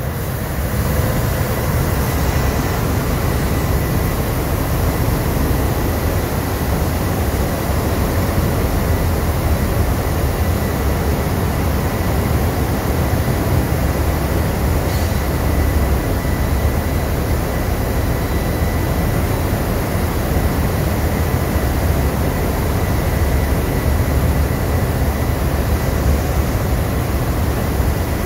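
Steady, loud machinery rumble of a ship's engine room under way, deepest and strongest in the bass, with a faint steady high tone over it.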